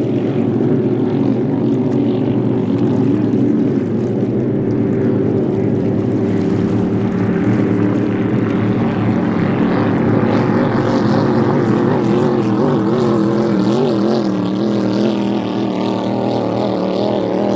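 Pro-Lite inboard hydroplane engine running flat out at race speed, a loud steady drone whose pitch wavers slightly.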